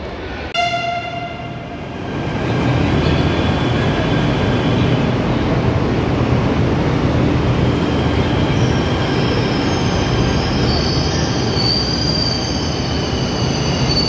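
A Delhi Metro train pulling into the platform. A short horn tone sounds once about half a second in. Then the train's running rumble builds and holds, and from about two-thirds of the way through, a high squeal of wheels and brakes rises as the train slows to a stop.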